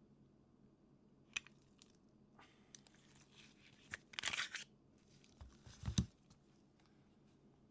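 Faint handling noises from a pistol: a sharp click about a second in, scattered light clicks, a rustle about four seconds in, and a dull thump around six seconds.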